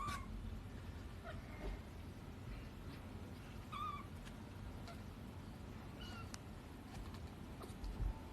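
A cat meowing a few times: short meows right at the start and about four seconds in, and a fainter one around six seconds, over a low steady hum.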